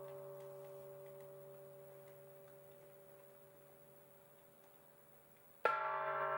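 Bell-like ringing tone with several steady overtones, fading slowly, until a sudden sharp strike about five and a half seconds in sets it ringing loudly again.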